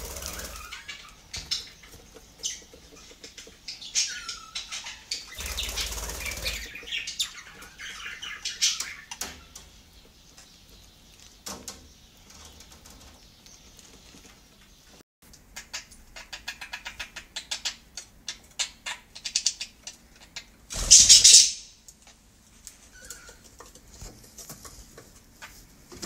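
A flock of budgerigars chirping and chattering in quick runs of short, high notes, with a few brief bursts of wing flapping. The loudest flap comes a few seconds before the end.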